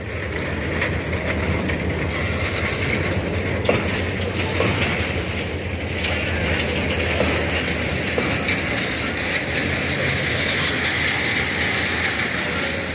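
Empty ballast hopper wagons rolling slowly past on the track, their wheels running with a steady high squeal that grows stronger near the end, and a few knocks.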